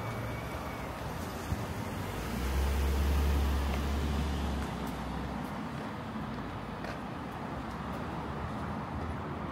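A motor vehicle passing on the street. Its low rumble swells from about two and a half seconds in and fades after about five seconds, over a steady street background.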